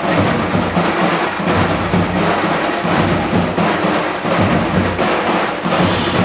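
Drums beating in a street procession band's music, loud and dense.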